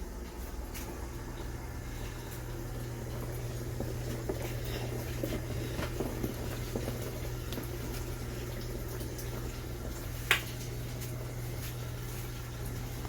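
COSTWAY portable mini washing machine running: a steady motor hum under water sloshing in the tub, with one sharp click about ten seconds in.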